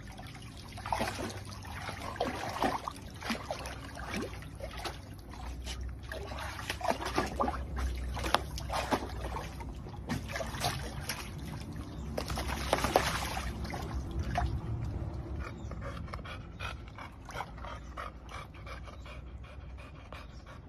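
Golden retriever moving about in a shallow pool of water, sloshing and splashing irregularly. Toward the end the splashing dies down and the dog pants steadily.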